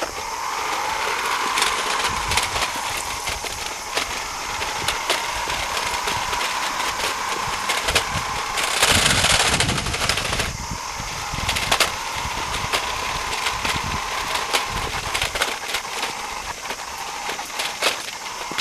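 Toy radio-controlled car's small electric motor whining steadily, with its plastic wheels and gears clicking and rattling over the ground. About nine seconds in there is a louder rattling burst lasting a second or so. The car is running weakly on a nearly flat battery.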